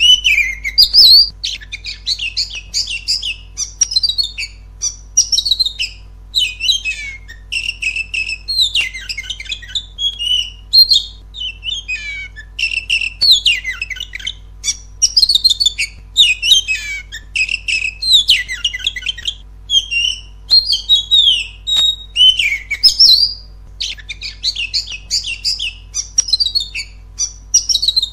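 An Oriental magpie-robin (kacer) singing loudly, in a long run of varied, fast whistled phrases with short pauses between them. This is the full-voiced song used as a lure (pancingan) to provoke other kacer into singing.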